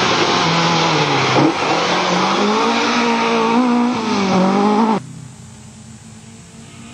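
Ford Escort Mk 2 rally car's engine revving hard as it passes close by on loose gravel, its pitch dropping and climbing again several times with gear changes and lifts, over a hiss of gravel under the tyres. About five seconds in the sound cuts to a much quieter engine heard from far off.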